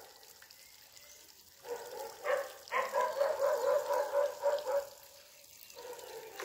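A dog barking in a rapid run of pitched barks, loudest from about two to five seconds in, with faint water splashing underneath.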